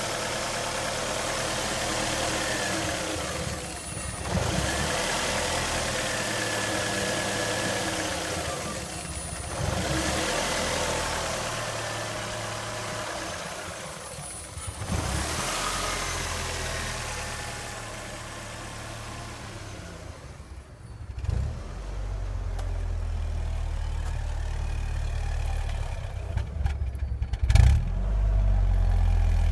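2001 Ford Focus four-cylinder engine idling roughly with a misfire, the idle surging and stumbling about every five to six seconds.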